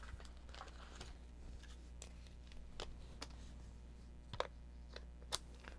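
Faint, scattered light clicks and taps of paper crafting, as a Stampin' Seal adhesive tape runner is applied to card stock, with two sharper clicks near the end.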